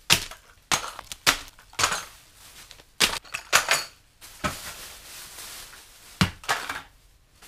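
Plastic packs of soft-plastic fishing lures being tossed down one after another onto a wooden tabletop, giving an irregular series of about a dozen sharp slaps and smacks with plastic rustle between them.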